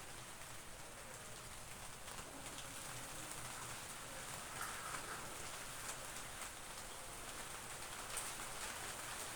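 Steady rain, an even hiss with scattered ticks of drops, and a faint short bird call about halfway through.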